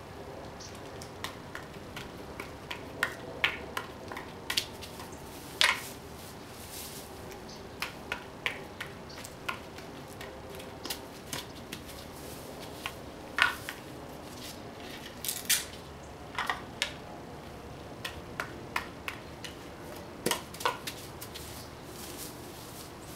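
Juggling clubs clacking and knocking as they are thrown, caught, hit one another and fall: a long run of irregular sharp clacks, some much louder than others.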